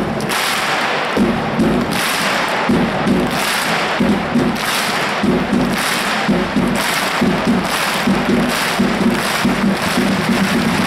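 Large stadium crowd of football supporters chanting in unison, with a steady beat of sharp claps, about three a second.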